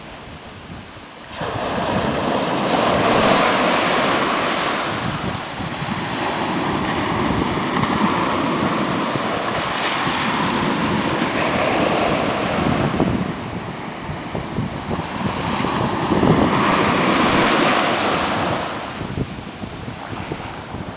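Sea surf: small waves breaking and washing up a sandy beach against rocks, the rush of foam starting about a second in and then swelling and ebbing in several surges.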